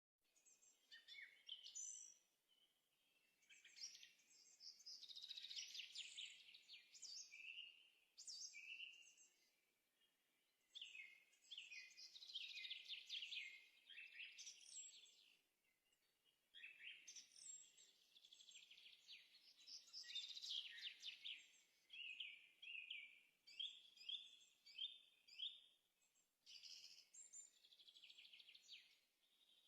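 Faint birdsong: bouts of quick chirps and trills lasting a few seconds each, with short pauses between them.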